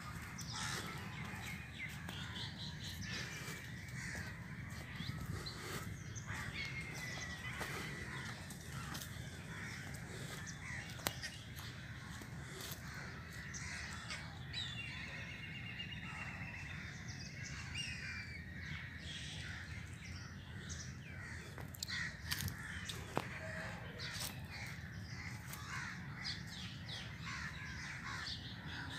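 Crows cawing again and again, with smaller birds chirping among them, over a steady low rumble.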